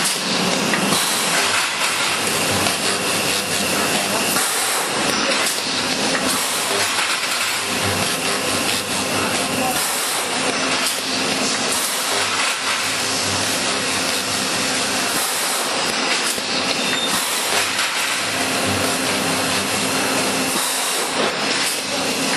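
Automatic steel wire mesh welding machine running: a steady, loud rushing noise that swells briefly every couple of seconds as it cycles.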